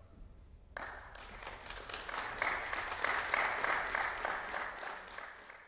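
Audience applauding: the clapping breaks out suddenly about a second in, swells, then tapers off near the end.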